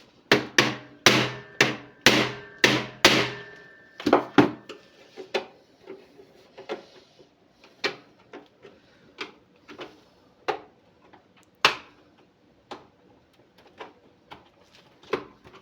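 Sharp knocks or hammer taps on a hard object. About nine loud strikes come quickly in the first three seconds, then softer single knocks follow every half second to second, with one louder knock near the end.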